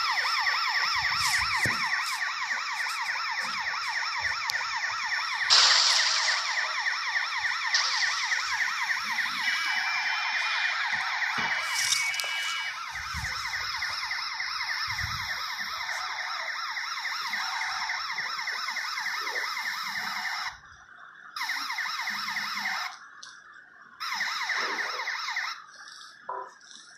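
Ambulance siren sounding a fast yelp, its pitch sweeping up and down several times a second. It cuts off about twenty seconds in, then sounds again in two short bursts.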